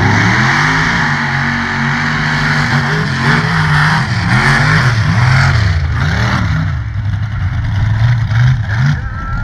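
Mega truck engines revving hard as the trucks launch and race, the pitch climbing sharply at the start and then rising and dropping again and again with throttle and gear changes.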